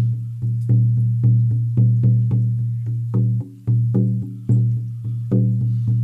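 A 14-inch buffalo skin frame drum on an ash frame struck with a soft beater in a steady beat of about two strokes a second, with lighter strokes in between, each leaving a deep ringing boom.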